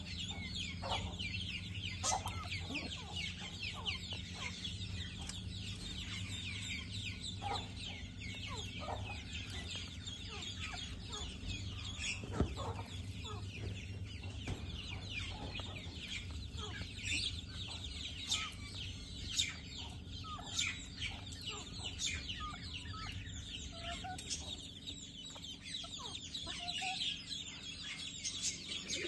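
A group of ring-necked parakeets chattering, with many short, sharp calls overlapping without pause. A steady low hum runs underneath.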